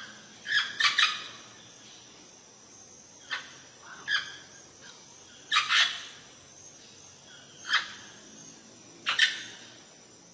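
Amazon parrot giving short, harsh squawks, some single and some in quick pairs, every second or two.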